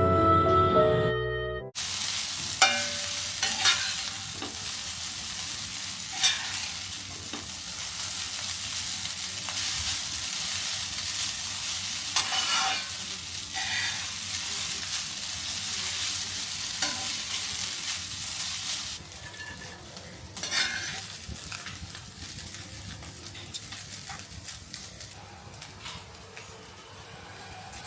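Food sizzling as it fries in a pan while being stirred, with scattered clinks and scrapes of the utensil against the pan.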